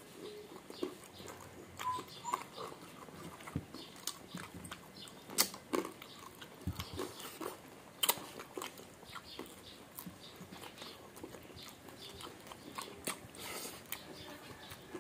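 Close-up mukbang eating sounds: people chewing crispy fried pork and rice with their mouths near the microphone, with irregular sharp clicks and wet smacks.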